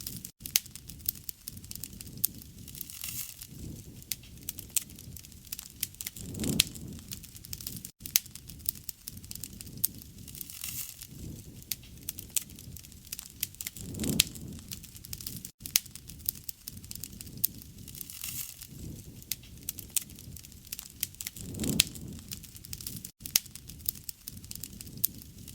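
Wood fire crackling, with many sharp snaps and pops over a low rumble of burning. The same short stretch repeats about every seven and a half seconds, with a brief dropout where it loops.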